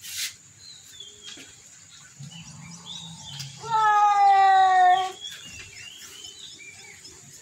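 A cat gives one drawn-out meow of about a second and a half, a little past halfway, falling slightly in pitch. Faint high chirps come and go around it.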